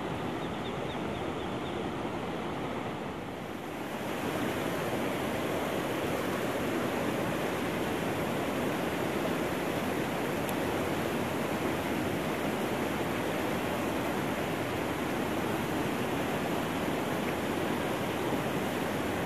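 Steady rush of flowing river water, rising a little in level about four seconds in.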